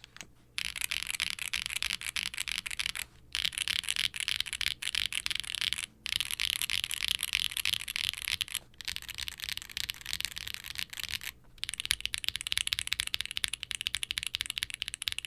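Fast typing on a Qwertykeys QK60 R3 mechanical keyboard with HMX K01 light tactile switches, a POM plate and GMK double-shot ABS keycaps. The keypresses come in runs of about three seconds, broken by short pauses.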